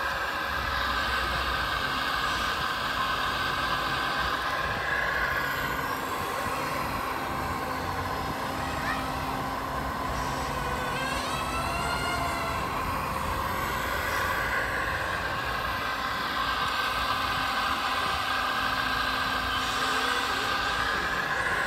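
Radio-controlled Liebherr 956 model excavator at work: a steady whine from its motors that rises and falls in pitch as the arm digs, swings and dumps dirt into a model dump truck.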